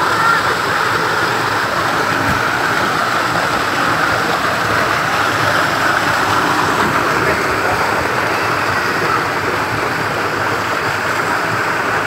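Small waterfall pouring over a masonry dam wall and splashing onto the rocks below: a steady rush of falling water.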